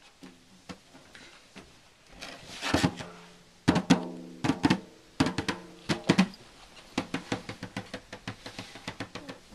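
Snare drum struck by hand at an irregular pace, each hit ringing briefly, with quicker, lighter taps near the end.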